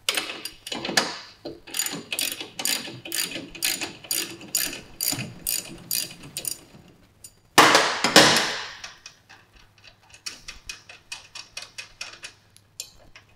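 Ratchet wrench clicking at about three clicks a second as it works a nut at the motorcycle's rear axle. About eight seconds in come two louder scraping knocks, then the clicking goes on quicker and lighter.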